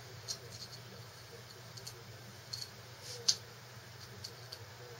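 Scattered small clicks and light taps from hands handling an Invert Mini paintball marker around its grip, with one sharper click a little past three seconds in.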